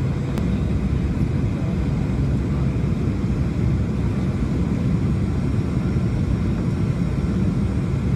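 Airliner cabin noise on approach: a steady low rumble of the engines and the airflow past the fuselage, heard from a window seat.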